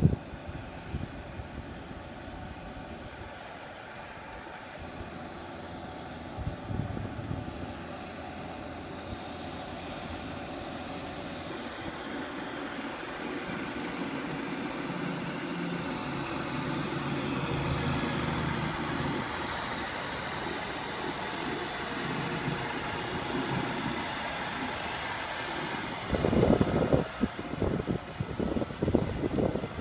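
A vehicle engine running steadily and gradually growing louder, with loud irregular buffeting over it near the end.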